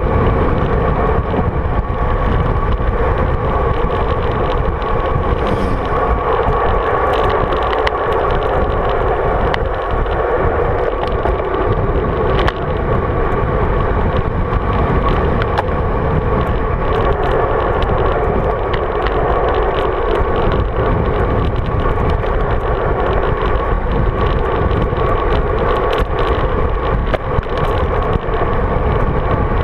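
Wind and road noise of a road bike being ridden, heard through a bike-mounted GoPro Hero 3 in its housing: a steady loud rush with many small clicks and knocks from the road surface.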